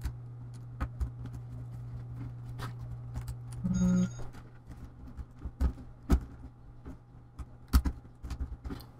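Scattered light clicks and taps of plastic as a laptop keyboard's edge and retaining clips are pressed and probed with a tool and fingertips, over a steady low hum. A short pitched sound comes about four seconds in.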